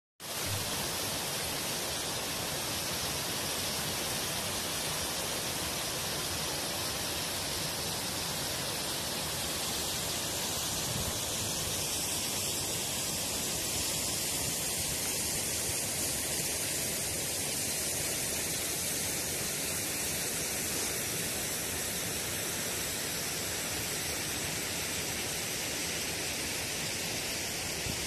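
Steady rushing hiss of falling and running water from Öxarárfoss waterfall and the river below it, with its drop partly frozen over.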